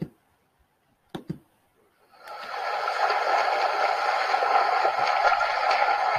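A few sharp clicks in the first second and a half, then from about two seconds in a steady rushing hiss as a listening-exercise audio track starts playing in a computer media player.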